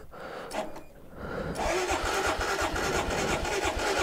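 Royal Enfield Himalayan BS6 single-cylinder engine being turned over by its electric starter in a cold start at about 2 °C. The cranking begins about one and a half seconds in as a fast, even rhythm, and the engine has not yet caught.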